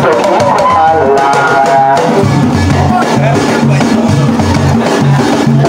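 A group of hand drummers playing live, with voices singing over the drumming for about the first two seconds. After that a steady low drum beat of about two strokes a second carries on.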